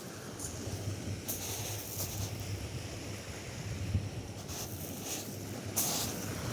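Atlantic surf washing on a sandy beach, with wind rumbling on the microphone and several short bursts of hiss.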